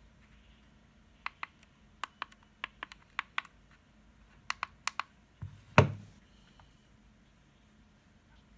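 Push buttons on a Novusun NVBDL+ brushless motor driver's control panel clicking, about a dozen sharp clicks mostly in quick pairs of press and release. Near six seconds in, a louder thud as the driver unit is set down on the table.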